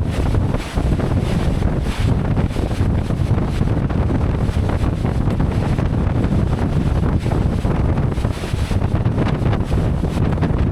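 Strong wind buffeting an action camera's microphone, a loud, steady rumbling roar.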